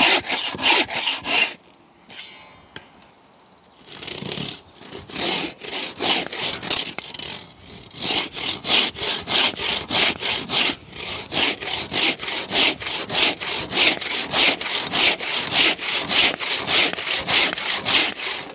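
Hand saws cutting through a small log in steady back-and-forth strokes. A bow saw runs for about a second and a half, then after a pause of about two seconds a one-man crosscut saw, freshly sharpened and set, takes over at about two to three strokes a second until the end.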